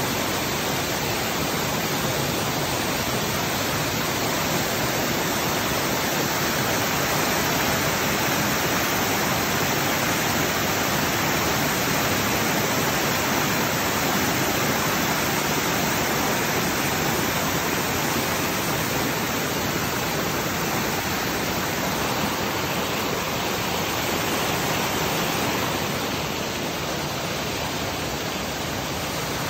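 Water of a rocky forest stream rushing and cascading over rocks in a small waterfall, a steady rush of noise; it turns slightly quieter near the end.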